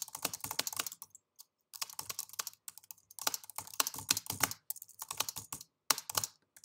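Typing on a computer keyboard: quick runs of keystrokes with short pauses between phrases, the longest pause coming about a second in.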